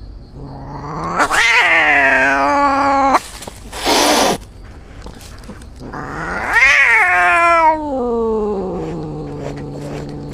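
A cat yowling: two long, drawn-out caterwauls that rise and then slide down in pitch, the second one longer, with a short hiss between them.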